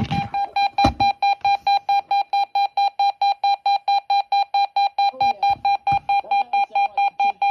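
Radio Shack 12-258 SAME weather radio sounding its alert beep: a rapid, evenly pulsed beep at one pitch, about four or five a second, for a statement-level alert. A few dull knocks from buttons being pressed on the radio come between the beeps.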